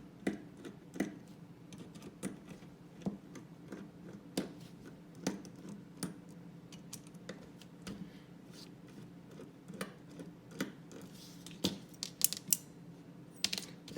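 Small, irregular metallic clicks and ticks of a T8 Torx driver working the spacer screws out of a balisong knife handle, with a quicker run of clicks near the end.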